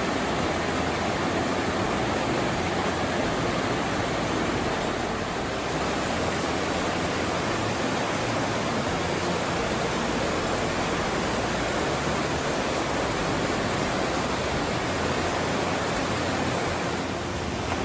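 Waterfall close by: a steady, dense rush of falling water with no change throughout.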